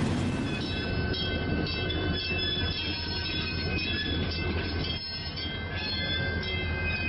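Real train rolling by: a steady low rumble with several sustained high-pitched wheel squeal tones over it. The sound changes abruptly about a second in, where one recording is cut to another.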